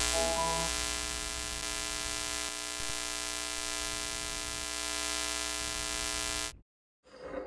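Television static sound effect: a steady electrical buzz with hiss, with a few short glitchy tones in the first second. It cuts off suddenly near the end.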